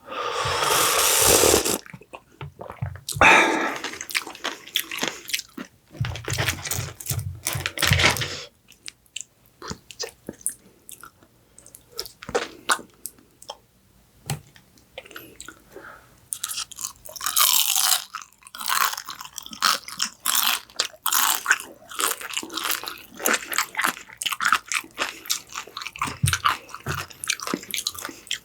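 Close-miked person eating: repeated biting and crunchy chewing with irregular crackles and mouth clicks, in loud stretches broken by short pauses.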